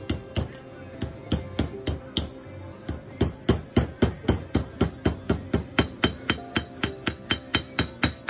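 Ball-peen hammer tapping steadily on metal in a 1966 Mustang front wheel hub, about three strikes a second, each with a short metallic ring. The blows grow harder about three seconds in: a bearing race being driven home in the hub.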